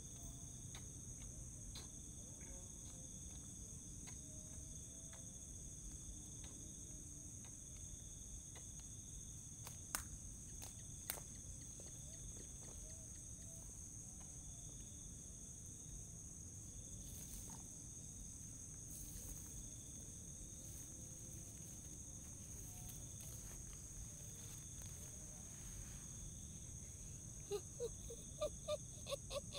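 Crickets or other insects trilling steadily in high, continuous tones, with two sharp clicks about ten and eleven seconds in. Near the end, a quick run of about eight short, pitched chirping calls.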